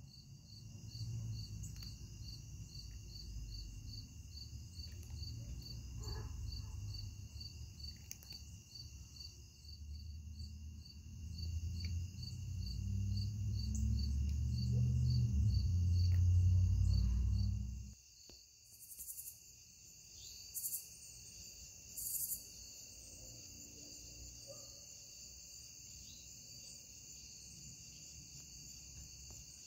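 Crickets and other insects trilling steadily, one chirping in a fast even pulse of about two to three chirps a second. Under them a low rumble swells and then stops abruptly about two-thirds of the way through.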